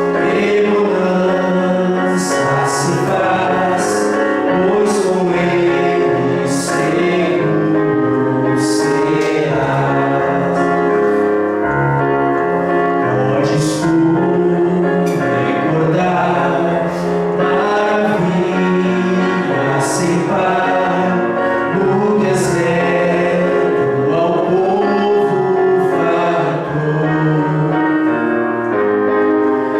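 Gospel hymn: voices singing a sustained melody over instrumental accompaniment, without a break.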